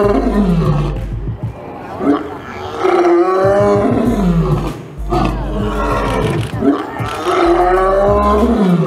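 A male lion roaring: a series of long, loud roars, each dropping in pitch at its end, with short breaths between them.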